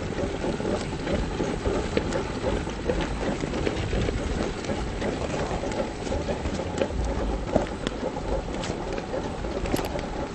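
1/10-scale RC rock crawler, an Austar SCX10 II clone, driving over rough stone pavers: a continuous low rumble from its drivetrain and tyres, with scattered small clicks and knocks as the wheels climb over the stones.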